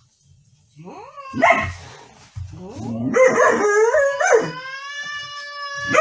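Husky-type dog howling: a couple of short rising yelps, then wavering howl notes, ending on one long held howl.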